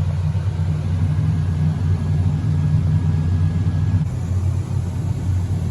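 Tractor engine running steadily, heard as a low hum from inside the cab. A faint high whine stops about four seconds in.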